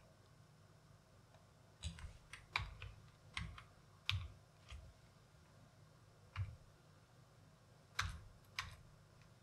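Typing on a computer keyboard: irregular keystrokes in short runs with pauses, starting about two seconds in.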